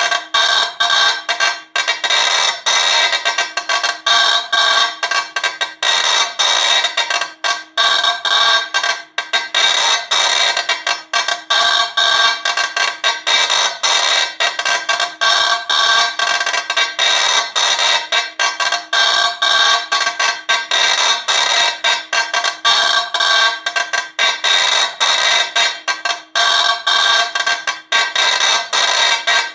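CNC impact-etching engraver hammering a granite slab with its needle at a very fast rate. It makes a continuous high, ringing buzz with short dips now and then.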